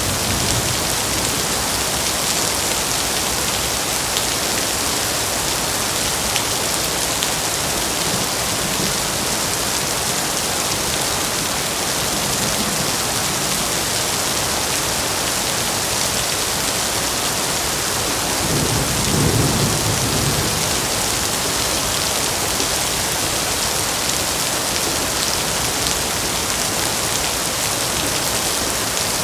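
Heavy rain falling steadily, a dense hiss of drops, with low thunder rumbling faintly at the start and swelling again about two-thirds of the way through.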